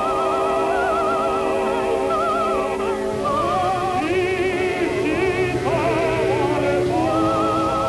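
Opera music: a singer's voice with strong vibrato over sustained accompanying notes.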